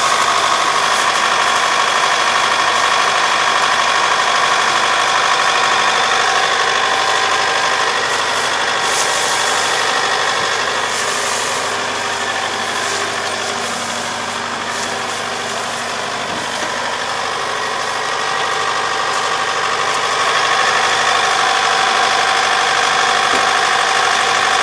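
Kubota ER470 combine harvester's diesel engine running steadily, its header clogged with lodged rice stalks. It dips a little in loudness for a few seconds midway.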